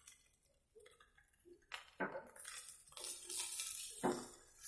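A spatula scraping and knocking against a pan while fried rice is tossed and stirred. The stirring starts about two seconds in with a couple of sharp knocks, runs as continuous scraping, and ends with another knock near the end.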